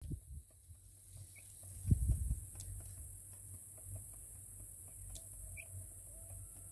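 Outdoor ambience: an uneven low rumble of wind on the phone's microphone, loudest about two seconds in, over a steady high hiss. Two short faint chirps come about a second and a half in and again near the end.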